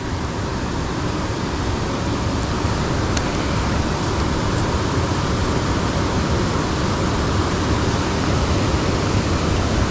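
Steady, even rushing noise with no pitch, growing slightly louder, with a couple of faint ticks about three and four and a half seconds in.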